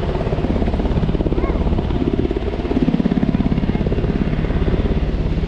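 Firefighting helicopter hovering low over the water to take on water, its rotor blades beating with a fast, even pulse that swells slightly about three seconds in.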